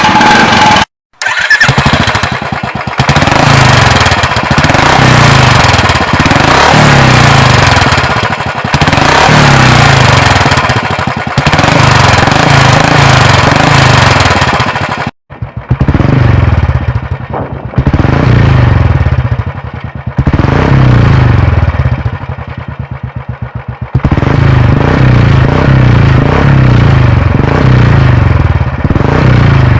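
Royal Enfield motorcycle engine revved repeatedly through an aftermarket exhaust silencer, in loud throttle blips over a low, pulsing beat. The sound cuts off abruptly about a second in and again about fifteen seconds in, then resumes.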